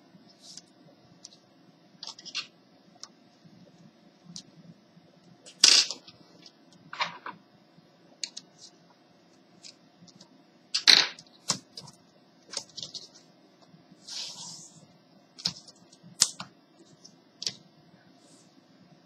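Small screwdriver prying and tapping along the edge of an HP 6530b laptop's keyboard and casing: irregular plastic clicks and scrapes, with a louder click about six seconds in and another about eleven seconds in, over a faint steady hum.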